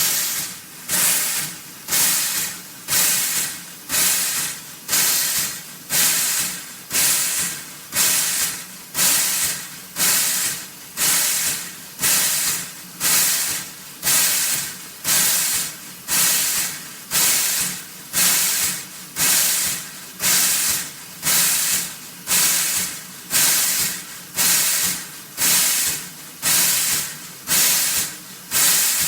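Steam locomotive chuffing slowly and evenly, about one hissing exhaust beat a second, each beat starting sharply and fading away, over a faint steady low hum.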